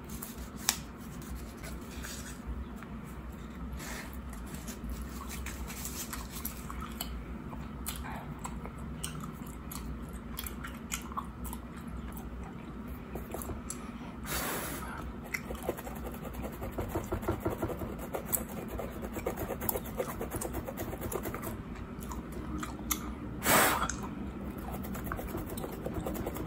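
Open-mouthed gum chewing with wet smacks and clicks, mixed with a plastic fine-tooth comb scratching along a mannequin's scalp in quick strokes. It opens with the crinkle of a gum packet being opened, and there is one louder short rush of noise about three-quarters of the way through.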